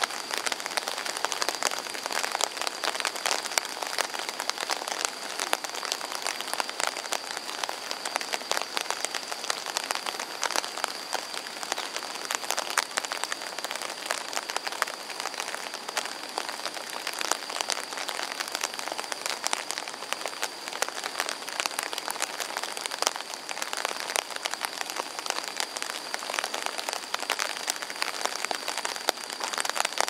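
Steady rain falling, a dense hiss thick with the pattering of individual drops close by. A thin, steady high-pitched tone sits underneath throughout.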